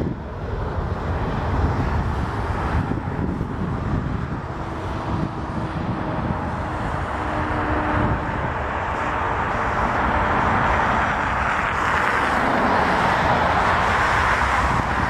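Airbus A310 airliner's twin jet engines at takeoff thrust during the takeoff roll: a steady roar over a low rumble, growing louder and brighter in the second half as the jet comes closer.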